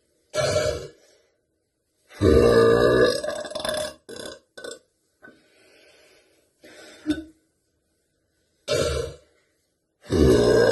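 A woman burping loudly four times: a short burp at the start, a long drawn-out one about two seconds in, another short one near nine seconds, and a long one starting just before the end, with softer brief sounds in between.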